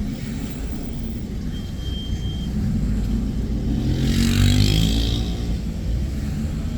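Car driving with steady engine and road rumble. The engine note rises as it accelerates, with a brief rush of noise about four seconds in.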